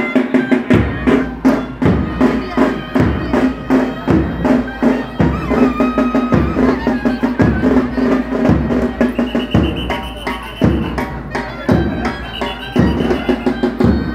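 Live traditional procession music of drums and a droning reed pipe. A steady drone runs under a deep drum stroke about once a second, with quick sharp drum strokes between the beats. A high, held pipe melody comes in about ten seconds in.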